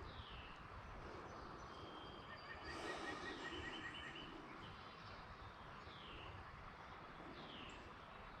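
Wild birds calling: several short, falling whistled notes and a brief trill, faint over steady background noise.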